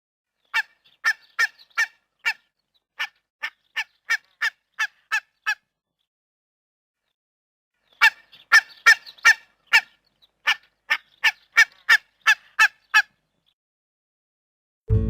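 A goose honking in two runs of short, clipped honks, about two to three a second, with a pause of a couple of seconds between the runs.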